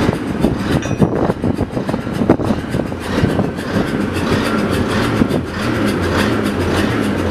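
Barclay diesel shunting locomotive moving slowly past at the head of a train. Its diesel engine runs with a steady low note, and there are knocks and clanks from the train in the first few seconds.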